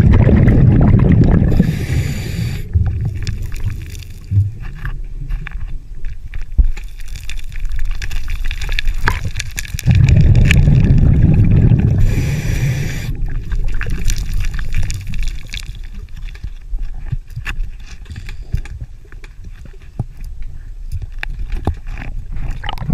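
A scuba diver's breathing heard underwater: two loud bubbling rumbles of exhaled air from the regulator, one at the start and one about ten seconds in, each ending in a brief hiss. Small clicks and scrapes of the gloved hand among river rocks come in between.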